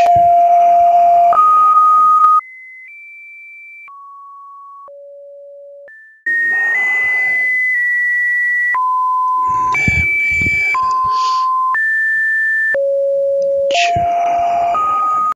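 A series of steady electronic beep tones, each held for half a second to about a second and a half, jumping between middle and high pitches. Hiss and crackle sound over many of the tones, and a stretch from about two and a half to six seconds in is much quieter.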